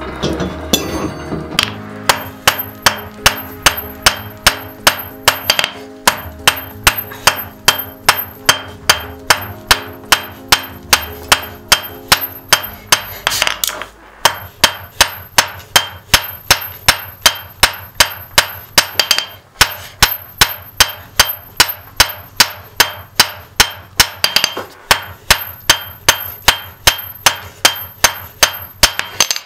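Hand hammer striking hot wrought iron on a steel anvil in a steady rhythm, about three blows a second, each with a bright ring. The blows start about two seconds in and pause briefly about halfway.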